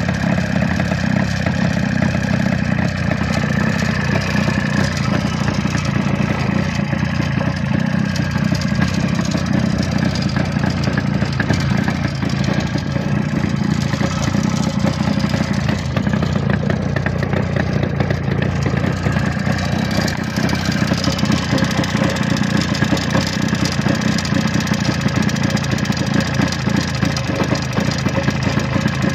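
Jawa 350 Deluxe's two-stroke twin-cylinder engine idling steadily, running again after long standing.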